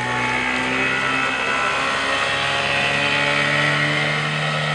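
Small tiller outboard motor running at full throttle as the boat climbs onto plane with the trim pin in its lowest, trimmed-in position. Its pitch rises at first, then holds nearly steady.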